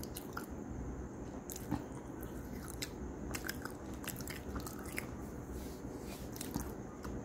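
A person biting and chewing something hard and crunchy, with sharp crunches scattered irregularly over a steady low hum.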